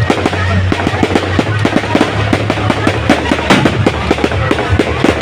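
Fireworks going off in a rapid, dense run of bangs and crackles, several a second.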